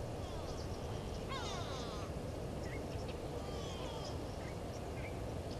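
Wild birds calling in the bush: scattered short chirps, with clusters of quick falling notes about a second and a half in and again near four seconds. Steady low background noise runs underneath.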